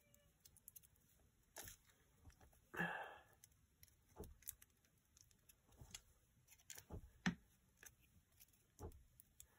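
Faint handling noises of a glue stick and paper: scattered small clicks and taps, with a brief, louder rustle about three seconds in.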